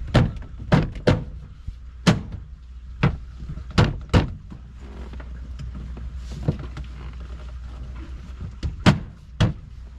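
Plastic dash panel of a John Deere Gator RSX being pressed and knocked back into place by hand: about ten sharp knocks and thunks at uneven intervals, over a steady low hum.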